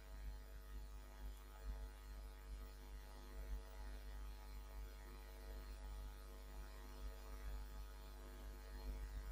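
Faint steady electrical mains hum with low background hiss, a recording-chain hum under the pause in narration.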